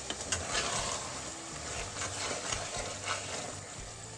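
Metal ladle stirring mutton curry in a pressure cooker over a high flame, scraping and clicking against the pot a few times while the meat and onions sizzle.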